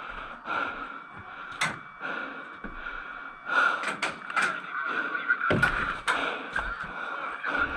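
Airsoft pistol firing: a handful of sharp, irregularly spaced pops.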